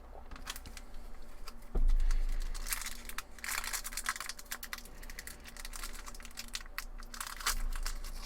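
Foil trading-card booster pack wrapper being torn open and crinkled, with rapid rustling and crackling. A single low thud about two seconds in.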